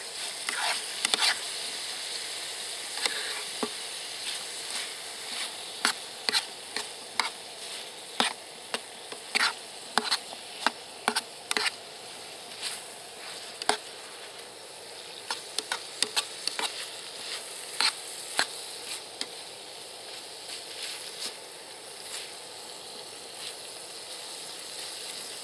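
Pan of duck, mushrooms and pears in a little stock sizzling steadily over the heat, with a utensil knocking and scraping against the pan in short irregular clicks as the food is stirred.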